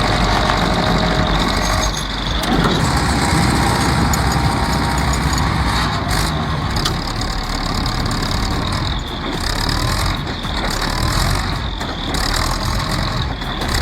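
A heavy vehicle's engine running steadily at working load, with a continuous mechanical rumble.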